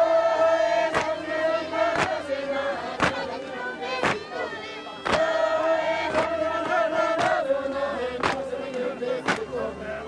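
A group of Tibetan workers chanting an aga-tamping work song in unison, with long held notes. Their wooden tampers strike the earth floor together about once a second, keeping the beat as they pack the aga earth.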